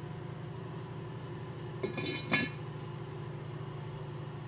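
Enameled cast-iron lid set down onto a Le Creuset Dutch oven: a brief knock and clatter of metal on metal about two seconds in, the last clink the loudest. A steady low hum runs underneath.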